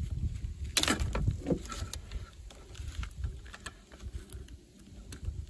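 Plastic clicks and light rattling from an MC4 solar cable connector being turned in plastic MC4 spanner wrenches as its cable nut is screwed down. The sharpest clicks come about a second in, over a low rumble.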